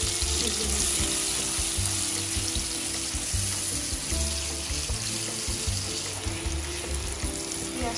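Onion slices sizzling in hot oil in an aluminium karahi, a steady hiss as they fry toward light brown. Background music with a pulsing bass beat plays under it.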